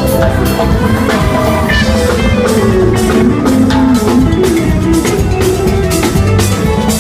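Live band playing a rock-style instrumental passage: a drum kit keeps a steady beat under guitar and other instruments.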